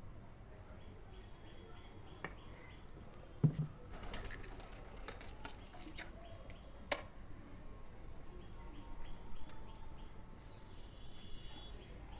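Small bird chirping in quick, even series of about four notes a second, in two runs. A single thump comes about three and a half seconds in, followed by a few sharp clicks and a brief scrape over the next few seconds.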